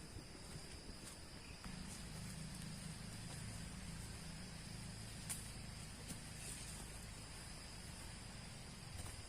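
Steady chorus of forest insects, a continuous high trill, over a faint hiss. A low rumble comes in about two seconds in, with an occasional faint click.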